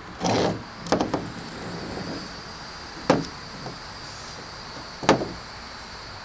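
Golf balls set down one at a time on a ribbed plastic pickup truck bed liner: sharp knocks about two seconds apart, the first a quick double. A steady high insect drone runs underneath.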